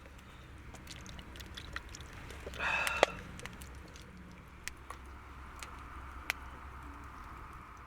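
Wood campfire crackling, with irregular sharp pops. About two and a half seconds in there is a brief clatter that ends in a sharp knock.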